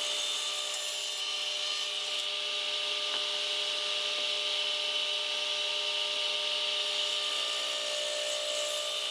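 DeWalt radial arm saw running steadily with a constant motor whine while crosscutting a wooden board to square up its ends.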